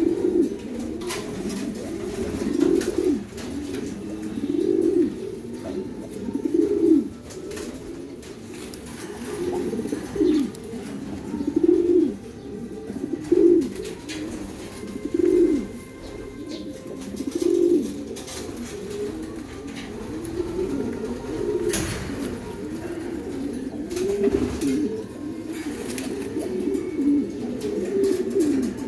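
Racing pigeon cock cooing over and over, a low rolling coo about every two seconds: the bow-coo of a cock courting a hen.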